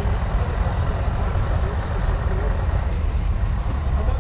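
Massey Ferguson 165 tractor's Perkins 3.5-litre four-cylinder petrol engine running steadily at idle.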